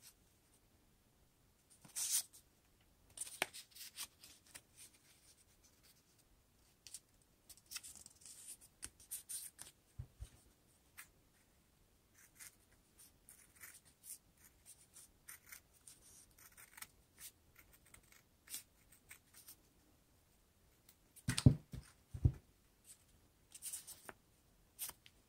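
Construction paper being handled, rustled and creased, with scissors snipping a strip of green paper. A few louder knocks and crinkles come near the end.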